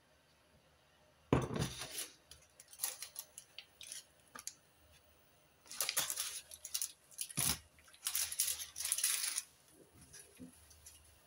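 A nonstick frying pan set down on a glass induction hob with a thud, then baking paper crinkling and rustling as a raw beef patty is peeled off it, with a second soft thud about halfway through as the patty goes into the pan.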